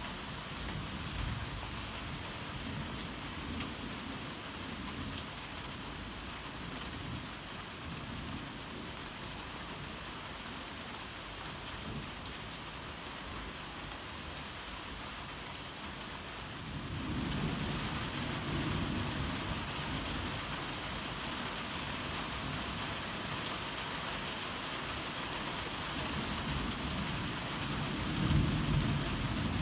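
Heavy rain falling steadily, with low thunder rumbling underneath. About 17 seconds in, the rain and the rumble grow louder, and a stronger roll of thunder swells near the end.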